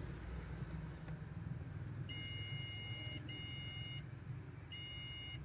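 Digital multimeter's continuity buzzer beeping as its probe touches ECM connector pins: a steady high beep starting about two seconds in, sounding in three stretches with short breaks, each beep signalling an unbroken wire. A low steady hum runs underneath.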